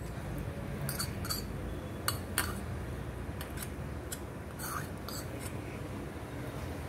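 A steel spoon scraping grated coconut out of a ceramic bowl into a stainless-steel grinder jar, with several light clinks and taps of the spoon against the bowl and jar.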